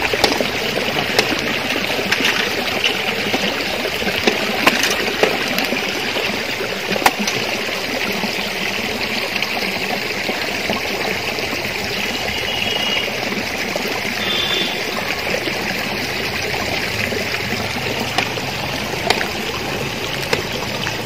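Small stream of water running and trickling steadily over rocks, with a few brief sharp clicks.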